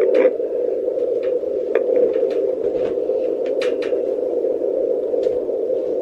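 Handheld fetal Doppler's speaker giving a steady whooshing static, with scattered short crackles and scrapes as the probe is moved over the gel on the belly. No clear heartbeat rhythm stands out.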